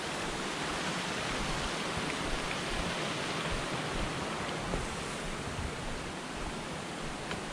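Steady rushing of a mountain creek, an even hiss of flowing water.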